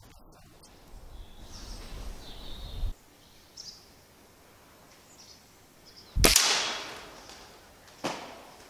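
A shot from a .177 Walther LGU spring-powered air rifle about six seconds in: a single sharp crack with a short ringing tail as the pellet is fired at a feral pigeon. About two seconds later comes a second, fainter knock.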